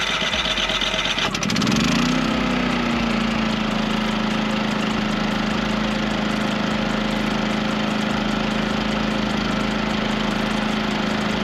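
Portable generator engine running. About two seconds in, it speeds up to a higher, steady pitch and holds there, picking up the load of the trailer just plugged into it.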